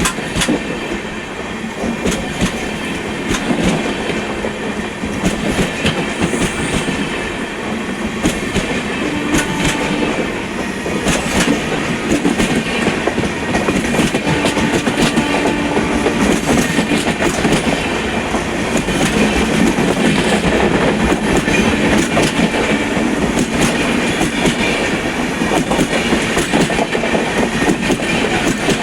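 Express train running on the rails: a steady rumble of wheels with repeated clickety-clack over the rail joints.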